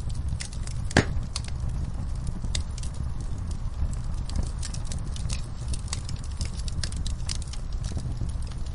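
Wood fire burning in a fireplace: irregular sharp crackles and pops over a steady low rumble of the flames, with one louder pop about a second in.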